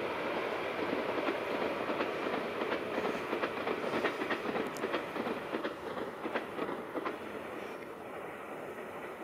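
Stadler Flirt 3 electric multiple unit running past at a distance, its wheels clicking rhythmically over the rail joints. The sound fades as the train moves away.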